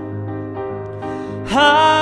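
Piano chords ringing under a pause in the vocal line; about one and a half seconds in, the voice comes back, sliding up into a loud held note with vibrato.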